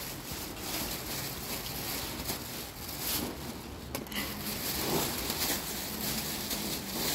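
Heavy rain falling steadily outdoors: an even hiss of rain with a few slightly louder swells.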